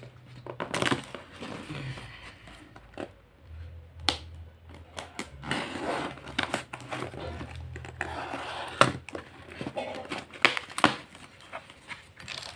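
Packing tape being picked at, peeled and torn off a cardboard shipping box: irregular scratching and crinkling with many sharp clicks.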